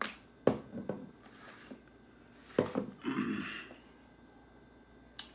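Kitchenware handled on a counter: a glass mixing bowl and a measuring cup knocked and set down on a plastic cutting board. It comes as a few separate sharp knocks, the loudest about half a second in and just past the middle, with a short rustling scrape right after the second.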